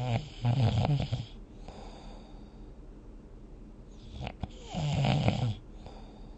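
A person snoring in deep sleep: a loud, rattling snore about half a second in, a softer breath around two seconds, and another loud snore near five seconds, with a short click just before it.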